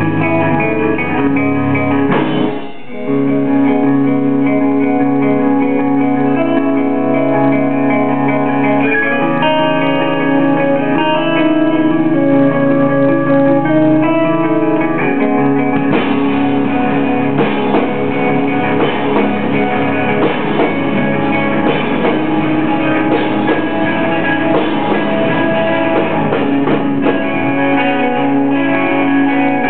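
Live rock band playing electric guitars and a drum kit through Marshall amplifiers, in a muffled, low-fidelity camera recording. Sustained ringing guitar chords break off briefly a few seconds in, and about halfway through the playing turns denser and busier with heavier drumming.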